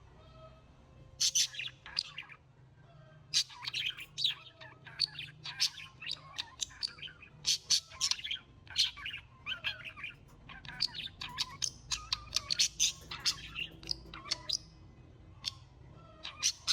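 Birds chirping: many short, high chirps in quick succession, over a faint low hum.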